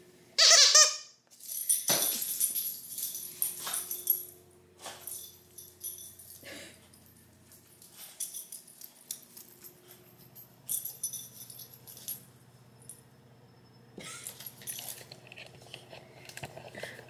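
Plush donut dog toy giving one loud, high squeak about half a second in, then light jingling, rattling and clicking as a small dog runs about carrying the toy in its mouth.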